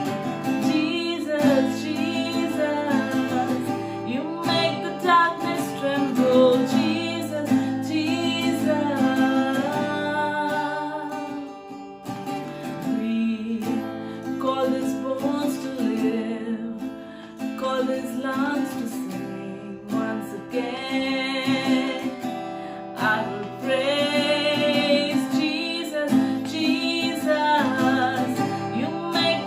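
Worship song played on acoustic guitar, with a singer holding long wavering notes.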